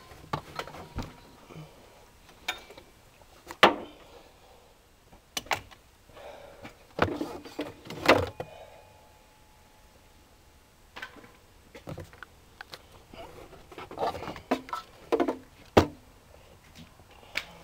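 Scattered knocks, clicks and clanks of a wrench and engine parts being handled while the accessory drive belts are pried off their tensioners, a dozen or so sharp hits with quiet gaps between.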